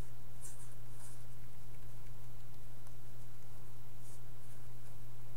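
A steady low electrical hum, with a few faint, soft rustles of a small packet of playing cards being spread and adjusted in the hands, near the start and again about four seconds in.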